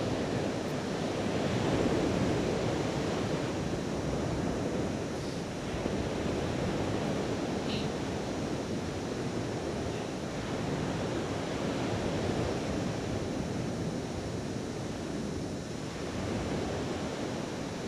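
Baltic Sea surf breaking on a sandy beach, mixed with wind on the microphone: a steady noise that swells and eases slightly.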